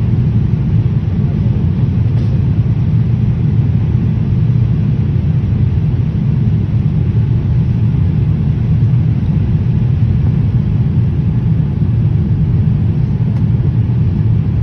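Steady low rumble inside the cabin of a Boeing 787-8 airliner in flight: engine and airflow noise heard from a window seat during its descent.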